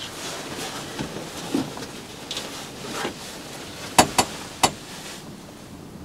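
Rustling and handling noise, with three sharp clicks in quick succession about four seconds in.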